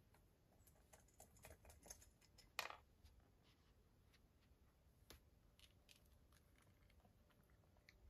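Faint clicks and taps as a cat digs dry treats out of a plastic puzzle feeder, treats and plastic pegs knocking together. There is a quick run of clicks early, one louder short rattle about two and a half seconds in, and scattered ticks later.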